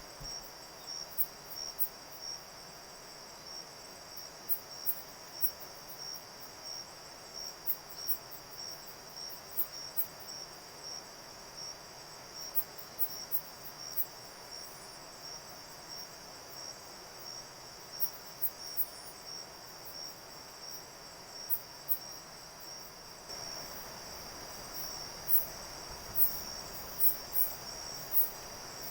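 Night-time insect chorus in forest: a steady high trill pulsing about twice a second, with sharper, irregular high chirps over it. An even, low rushing noise comes up about three-quarters of the way through.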